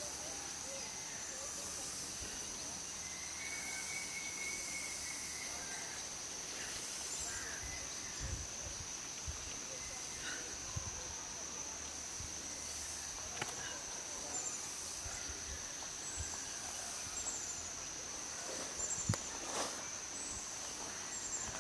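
Forest insects droning in one steady, high-pitched whine, with small chirps above it. Scattered soft rustles and knocks from movement in the undergrowth grow busier near the end.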